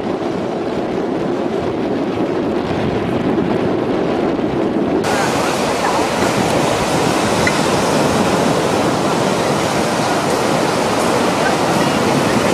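Steady noise of wind on the microphone and surf breaking on the beach, without distinct events. About five seconds in it turns abruptly brighter and hissier.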